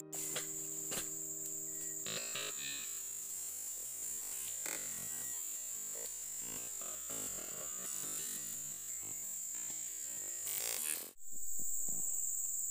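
Steady high-pitched drone of forest insects, with keyboard music fading out over the first two seconds. The drone drops out briefly about eleven seconds in, then carries on.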